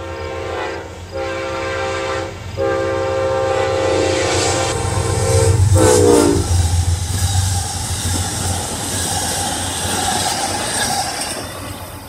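Amtrak GE P32AC-DM locomotive's air horn sounding a chord in three blasts, with short breaks about one and two and a half seconds in; the last blast drops in pitch as the locomotive passes at speed about six seconds in. Then the passenger cars rush past with wheel clickety-clack, fading near the end as the train moves away.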